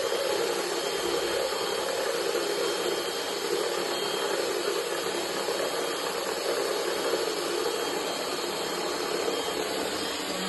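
Hand-held electric whisk running steadily, whirring as it whisks messy bubbles, switched on through a switch box set on a timer.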